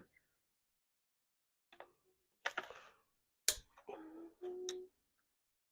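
Faint handling sounds while cutting a part free during bicycle assembly: a few sharp clicks, a short scraping rustle, and two short steady tones about four seconds in.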